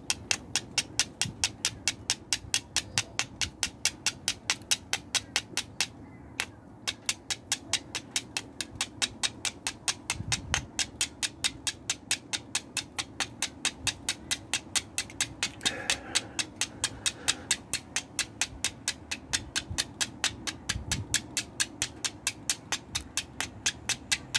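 Oval steel fire striker struck again and again down the edge of a flint, a quick even run of sharp scraping clicks about three or four a second, with a short pause about six seconds in. It is throwing sparks onto char cloth held on the flint, which has not yet caught an ember.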